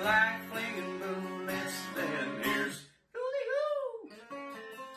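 Outro music with strummed acoustic guitar. About three seconds in it breaks off for a moment, and a short phrase of gliding, arching tones follows before the music carries on more quietly.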